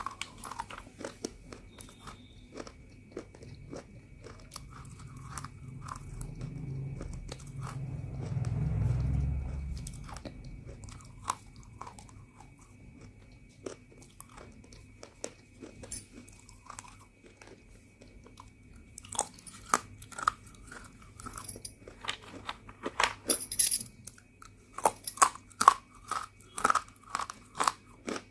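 Roasted multani mitti (Fuller's earth clay) bitten and chewed close to the microphone: sharp, crisp crunches throughout, growing denser and louder in the last few seconds. A low rumble swells and fades in the middle.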